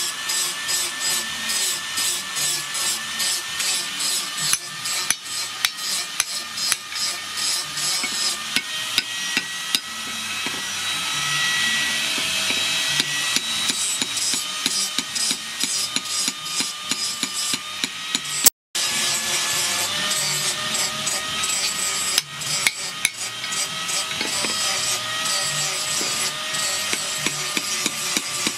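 Hand hammer striking a red-hot axe head on a steel post anvil: a steady run of metallic blows, about two a second, with a ringing tone between strikes. The sound cuts out briefly about two-thirds of the way through.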